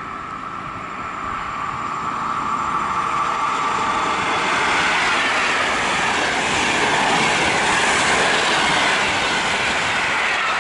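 Intercity passenger train hauled by an E414 electric locomotive running through a station at speed. The rushing noise of wheels on rail grows steadily louder as it approaches and is loudest for several seconds as the coaches pass close by.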